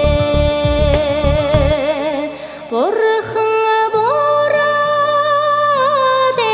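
A song: long held sung notes with wide vibrato over instrumental backing. A low beat stops about two seconds in, and a second later the melody slides up to a new held note.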